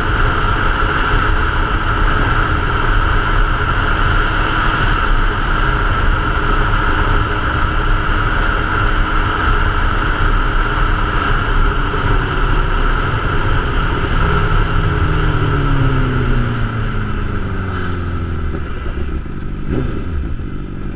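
Motorcycle engine running while riding along at speed. Over the last several seconds the engine note falls and the sound gets quieter as the bike slows down.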